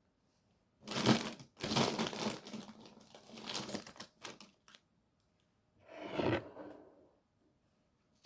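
Food packaging being handled and crumpled: crinkling in a long spell of rustling, then a shorter burst.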